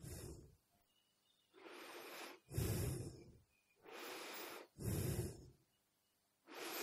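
A man's audible breathing close to the microphone: a run of in- and out-breaths, each under a second long, with short silent gaps between them.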